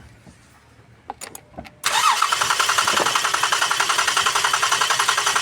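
A 2019 Lexus RX350's 3.5-litre V6 being cranked by the starter, with a rapid, even pulsing, without firing. The fuel rail line is cracked open to check whether fuel pressure reaches the engine after the tank ran dry. The cranking starts after a few faint clicks, about two seconds in.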